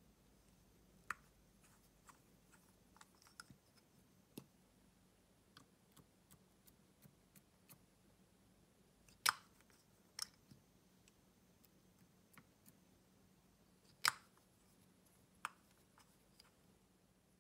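Faint scattered clicks and taps from handling a lip gloss bottle and its cap over slime, with two sharper, louder clicks about nine and fourteen seconds in.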